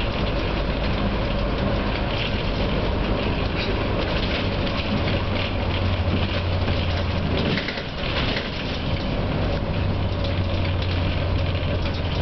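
Cabin noise of a NABI 416 transit bus under way: a steady low engine hum that firms up about halfway through, over continuous road and rattle noise.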